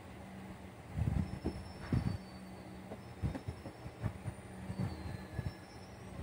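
Hands handling wires and plastic parts inside a ride-on toy car's body: irregular low knocks and rustles, the loudest about one and two seconds in, over a steady low hum.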